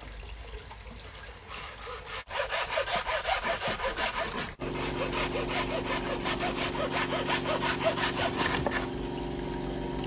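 Hacksaw cutting through a dry block of instant noodles on a wooden board, in quick, regular back-and-forth strokes that start about two seconds in and stop near the end. A steady low hum joins about halfway through.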